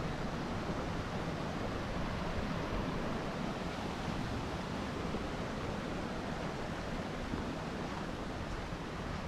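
Steady rushing of a shallow river running over rocks and a small cascade.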